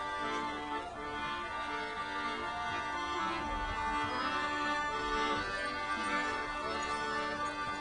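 Instrumental music with long held chords.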